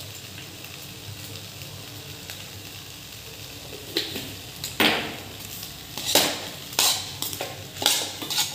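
Steel spoon stirring potato-and-pea masala in a hot pan, with a soft steady sizzle. From about four seconds in come about seven sharp strokes of the spoon scraping and knocking against the pan as the mixture is turned over.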